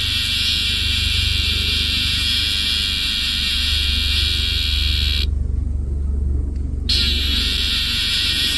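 Cicadas buzzing loudly and steadily; the buzz cuts off abruptly about five seconds in and starts again a second and a half later. A steady low hum runs underneath.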